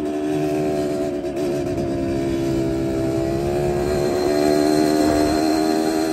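Yamaha DT two-stroke trail bike engine running at a steady speed under way, with wind rumble on the microphone; it grows slightly louder about four seconds in.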